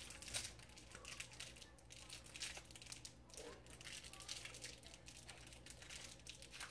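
Faint crinkling of candy wrappers as peppermint candies are unwrapped by hand.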